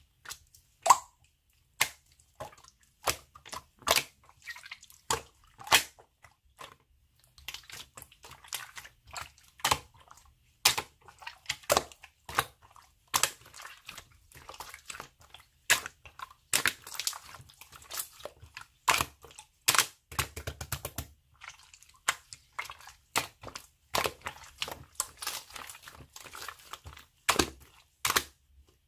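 Slime being squished and pressed by hand, giving irregular sharp wet pops and clicks, often one or two a second, with softer squishing and crackling between them.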